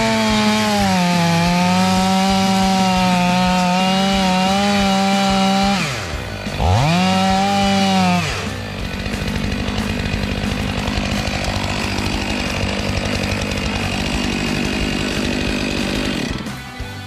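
Chainsaw running at high revs while cutting into a large log, its note steady, then easing off about six seconds in, revving up again briefly and dropping away about eight seconds in. After that, a steady rushing hiss goes on with only a faint engine note beneath it.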